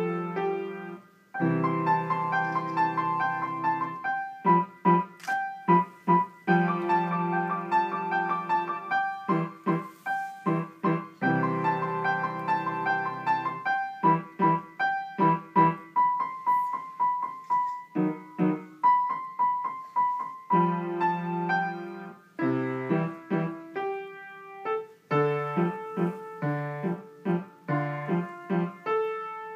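Upright piano played by a young child: a simple melody over repeated chords, in short phrases, with a brief break about a second in.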